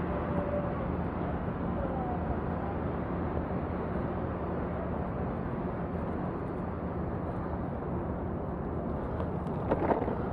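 Steady rushing noise of riding a bicycle, with a faint voice near the end.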